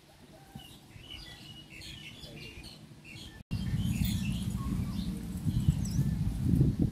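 Small birds chirping and twittering throughout. About halfway through, a louder low rustling rumble comes in and lasts to the end.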